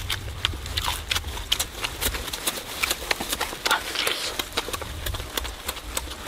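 Close-up mouth sounds of someone eating roast chicken and raw cucumber: fast, irregular wet smacking and crunching clicks.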